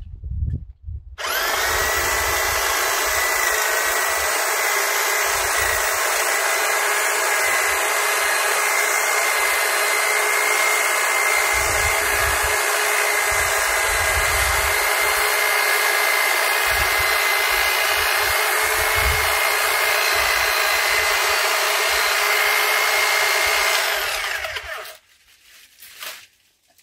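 Corded electric long-reach hedge trimmer running steadily, a motor whine with the buzz of its reciprocating blades. It switches on about a second in and winds down shortly before the end.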